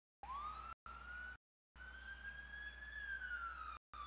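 Police car siren wailing, its pitch climbing slowly and then falling away, broken by several abrupt silent gaps where the sound cuts out completely.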